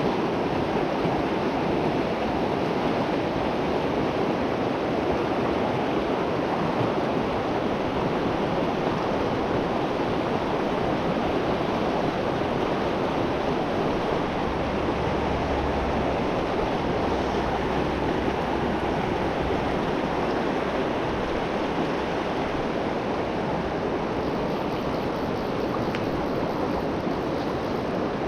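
River water rushing steadily over rocks, a constant even rush close to the microphone.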